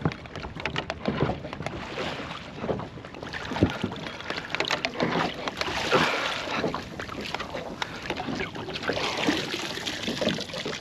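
Irregular knocks, clatter and rustling of a landing net and a large mulloway being hauled aboard and handled in a small boat.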